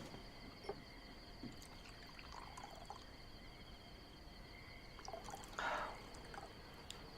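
Quiet sounds of a meal at the table: a few faint clicks and a brief pour of liquid about two-thirds of the way in. A steady high-pitched trilling runs underneath.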